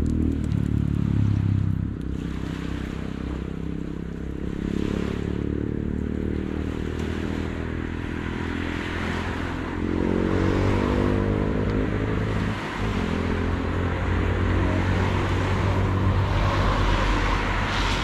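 Motor vehicle engines running in passing traffic, their pitch shifting up and down; one comes louder about ten seconds in.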